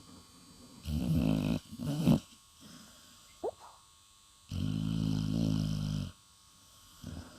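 Staffordshire terrier snoring in its sleep: two short snores about a second in, a brief rising squeak near the middle, then a longer snore of about a second and a half.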